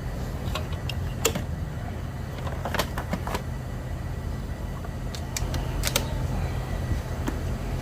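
Honda Civic EG hatchback engine idling steadily after a jump start from a power bank, with a few sharp clicks and taps scattered over it.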